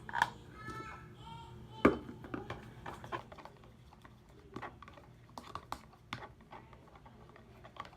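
Slime being mixed: irregular small clicks and taps of a utensil against its container, with one sharp knock about two seconds in.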